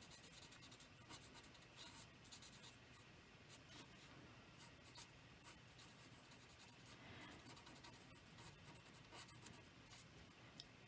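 Faint scratching of an alcohol marker tip colouring on thick cardstock, with many small irregular ticks as the strokes go back and forth.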